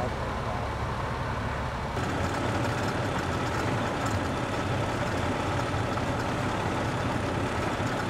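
Steady low rumble of fire engines idling. The background shifts and grows a little louder about two seconds in.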